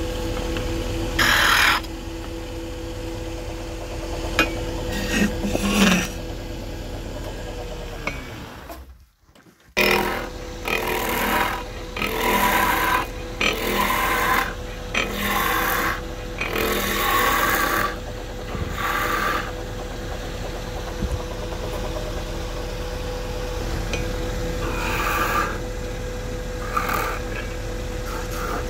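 Wood lathe running with a steady motor hum while a tool scrapes the spinning wood in repeated bursts. The hum slides down and cuts out about eight to nine seconds in, then the sound resumes with more scraping.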